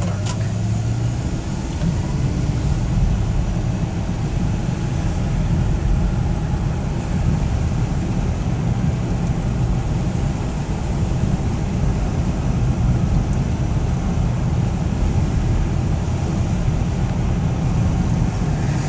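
Steady rumble and hiss of a car driving in heavy rain, heard from inside the cabin: engine and road rumble under the wash of wet tyres and rain on the car.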